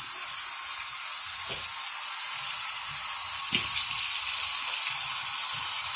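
Kitchen faucet running steadily into a sink: an even hiss of water.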